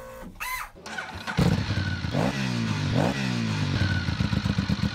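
Benelli 752S's parallel-twin engine starting about a second and a half in after a short whine, revved twice, then settling into a steady, evenly pulsing idle.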